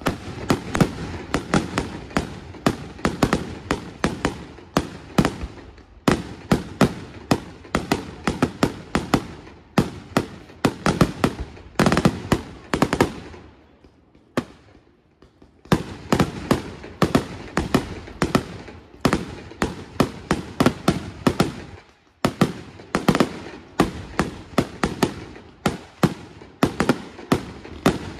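Aerial fireworks shells bursting in fast volleys of several bangs a second. The bangs pause briefly about fourteen seconds in and again about twenty-two seconds in.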